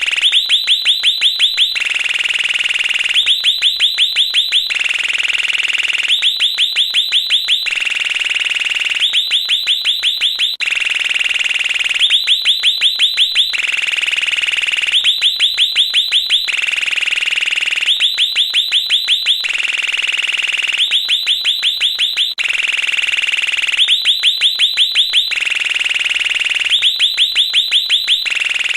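Electronic doorbell playing a bird-like chirping chime over and over. Each cycle is a steady high beep of about a second and a half followed by a quick run of about eight rising chirps, and the cycle comes round about every three seconds.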